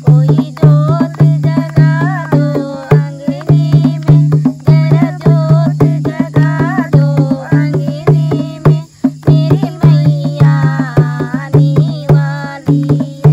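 Two women singing together to a dholak, a double-headed Indian barrel drum. The drum's deep bass strokes and sharp slaps keep a steady beat under the voices.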